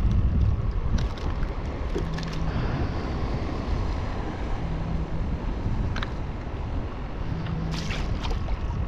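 Wind buffeting the microphone on open water, a steady low rumble, with a few faint clicks.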